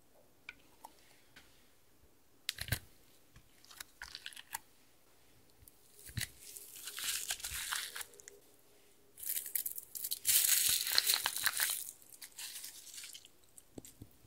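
Crackling, crinkly handling noise of slime ingredients being pressed and added into a glass dish full of foam beads. Scattered sharp clicks give way to two longer stretches of crackling, the louder one in the second half.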